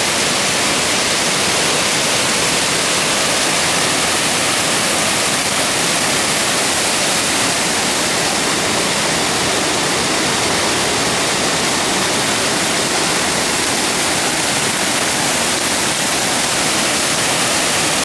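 Waterfall rushing down a rocky cascade: a loud, steady hiss of falling water.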